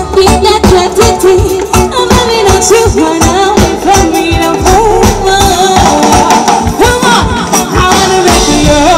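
Live band music: a woman singing into a microphone over djembe hand drums, a drum kit and electric guitars, with a steady beat.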